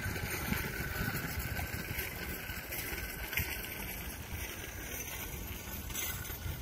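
Steady rush of wind over the microphone while riding a bicycle, mixed with the rolling noise of the tyres.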